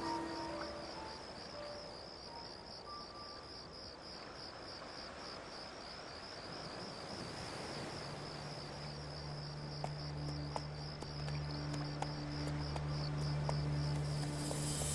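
Crickets chirping steadily in an even, rapid pulse. Soft music is laid under them, with a low held note coming in about halfway and swelling toward the end.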